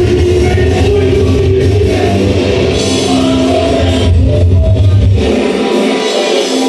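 Rock music played loud through a first-generation Audiomobile car-audio amplifier rack and speakers. About five seconds in, the bass drops out suddenly while the guitars and vocals play on: the bass amplifier has cut out, which the owner traces to a fuse problem.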